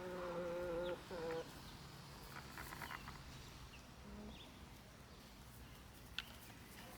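Backyard hens calling: a drawn-out call about a second long, a shorter one right after it, then a few faint soft clucks. A single sharp tick sounds near the end.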